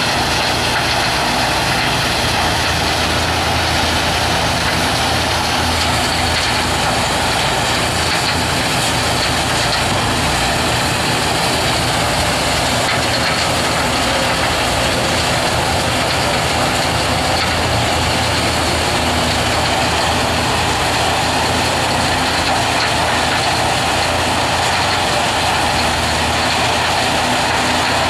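Mobile trommel gold wash plant running: a steady, loud din of heavy machinery with no pauses.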